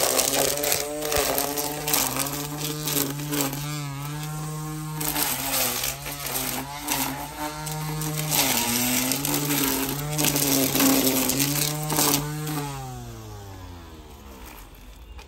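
Ryobi 18V cordless string trimmer running, its motor whine dipping and recovering in pitch as the spinning line cuts through weeds, with crackling strikes from the vegetation. About twelve seconds in the motor is let off and spins down, its pitch falling away.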